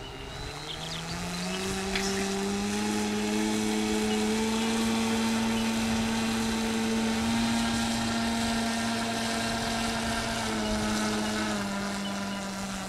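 The motor and propeller of a radio-controlled model Kingfisher seaplane, whining steadily as it taxis on the water. Its pitch rises as the throttle opens about a second and a half in, holds, then drops back a little near the end.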